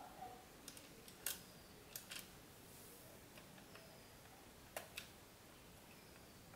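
Scattered small clicks and taps of a screwdriver working screws in an open laptop, with a cluster of clicks over the first two seconds and a pair just before five seconds.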